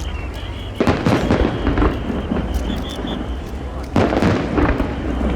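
Aerial fireworks bursting: two loud booms, about a second in and about four seconds in, each followed by a second or so of crackling, over a steady low rumble.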